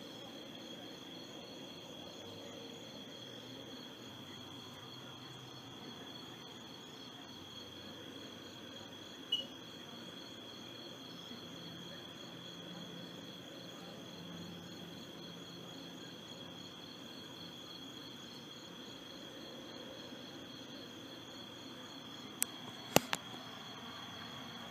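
A steady high-pitched insect trill, as of crickets, with a faint pulsing edge, over a low murmur. There is one sharp click about nine seconds in and a quick run of three clicks near the end.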